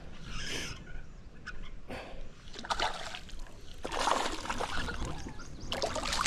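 Hooked bass splashing at the water's surface beside a kayak as it is reeled in and landed, in several irregular bursts.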